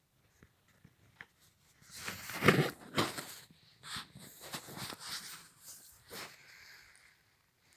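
Footsteps crunching and scuffing on dry ground and scrub, an irregular series that starts about two seconds in and is loudest just after.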